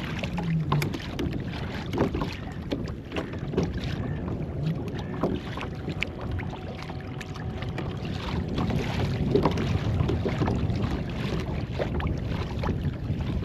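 Water sloshing and splashing around a kayak, with scattered knocks and clicks of gear being handled on board and wind buffeting the microphone.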